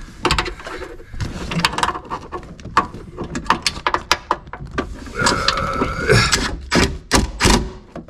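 Makita cordless driver working a bolt through a long socket extension: irregular clicks and metal knocks of the socket and tool, with the motor whirring steadily for about a second halfway through.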